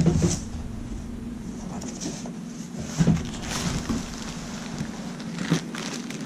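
Packing paper and plastic wrapping rustling and crinkling as parts are handled and lifted out of a cardboard box, with a few short knocks, one about three seconds in and another near the end.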